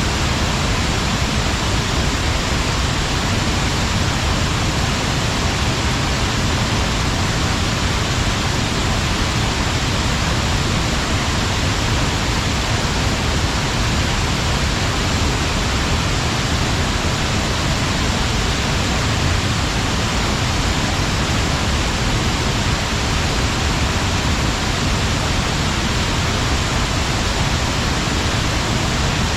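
Water pouring over a weir-type waterfall (check dam): a steady, unbroken rush of falling water, with a deep rumble underneath and a hiss on top.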